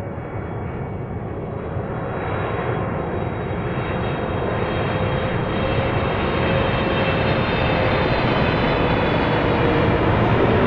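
Airplane engines on approach to land, a steady rumbling drone with a held hum and faint high whine tones, growing louder as the aircraft comes closer.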